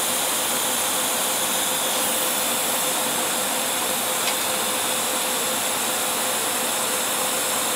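TIG welding arc on stainless steel tubing, run without filler from a torch with a gas lens and argon at 40 CFH: a steady hiss that cuts off sharply near the end as the arc is stopped.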